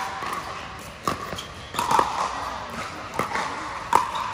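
Pickleball rally: paddles striking the plastic ball, sharp pocks about once a second with fainter taps between.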